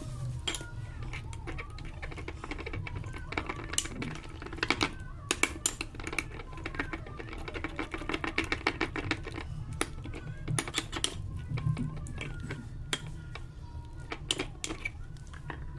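Slime being squeezed and poked by hand, giving a run of small clicks and pops, densest in a rapid crackling run about eight to nine seconds in.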